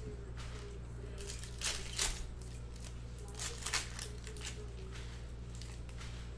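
Panini Absolute football trading cards and plastic pack wrapper being handled: a few short rustles and card flicks, in pairs about two and three and a half seconds in, over a steady low hum.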